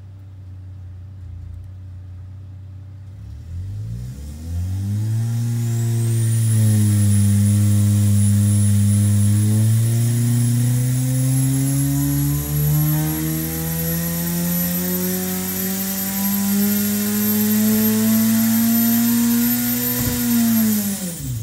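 Mountune-built Ford 2.3L EcoBoost turbocharged four-cylinder running on an engine dyno. It revs up from idle about four seconds in, holds steady at about 3,000 rpm, then climbs steadily in a full-power pull to about 7,200 rpm and drops back sharply near the end. A high whine rises with the engine speed.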